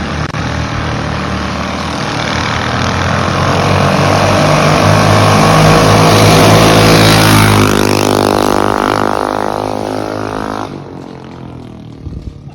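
Mini bike's Predator 212 single-cylinder engine running under throttle as the bike rides past. The engine note climbs in pitch and loudness, then drops sharply as the bike passes about seven seconds in, and fades as it moves away.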